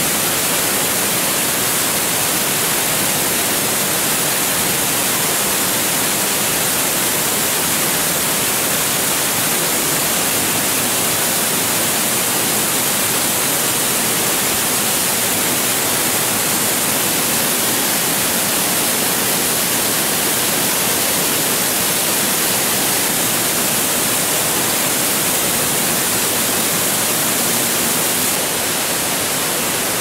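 A cascading waterfall in heavy flow, water pouring over the rock face and crashing into the pool below in a loud, steady rush. It dips slightly in level near the end.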